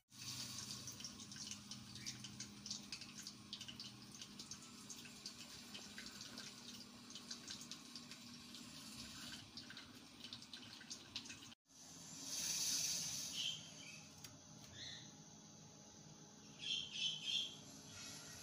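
Faint kitchen sounds: a light, irregular crackle of small ticks, then a short rush of running or poured liquid about twelve seconds in, with a few drips near the end.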